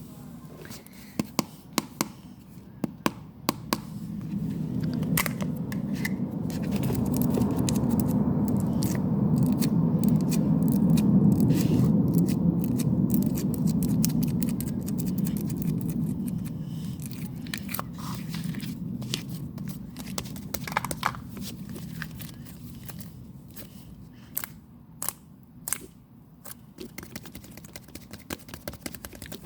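Kitchen handling sounds while making corn soup: scattered sharp clicks and taps, and in the middle a low rushing noise that builds up and then fades away over about fourteen seconds.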